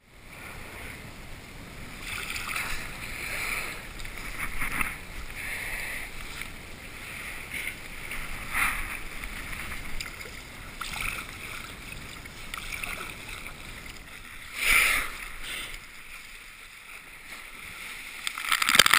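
Kayak paddle strokes splashing in choppy sea water, with wind on the helmet camera's microphone. Just before the end a humpback whale surfaces right under the kayak in a loud rush of crashing, splashing water.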